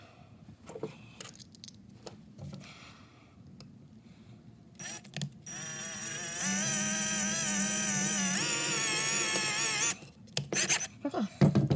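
Hyper Tough cordless drill running steadily for about four seconds from about halfway in, drilling a hole through a metal snuff-can lid, its pitch shifting partway through. Before it, light clicks of the lid and pliers being handled.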